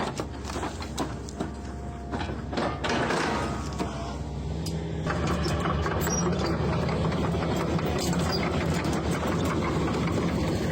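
Excavator with a stump-cutter attachment working: the engine runs under load with scattered sharp knocks and cracks for the first few seconds, then settles into a steady engine drone about halfway through.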